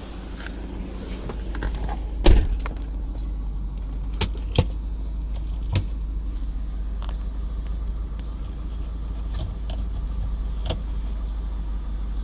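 Car engine idling roughly, a steady low rumble. A few sharp clicks or knocks sound over it, the loudest about two seconds in.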